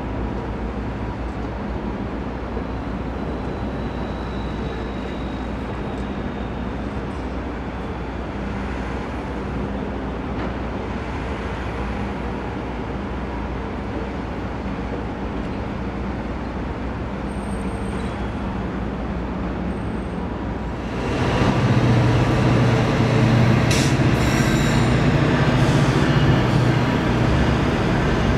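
Steady low rumble, then about 21 s in a GO Transit diesel locomotive leading an arriving train comes in loud: a strong engine drone with rail noise and a few sharp clicks of wheels over rail joints.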